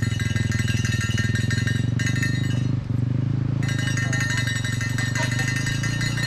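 Mountain bike ridden at race pace: a high metallic buzz that cuts out briefly twice, about two and three seconds in, over a steady rumble of tyres and wind.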